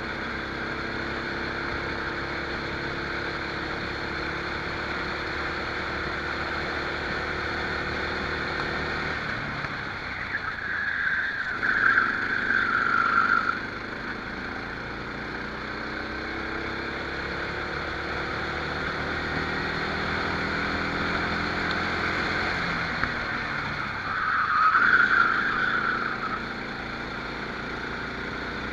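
Rental kart engine heard onboard, its pitch climbing steadily as it accelerates, then dropping off twice when the throttle is lifted. Each time this comes with a louder wavering squeal of the tyres sliding through a corner.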